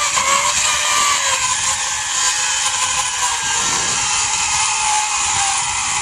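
Zip-line trolley pulleys running along the steel cable at speed: a steady whirring whine over a loud rushing hiss.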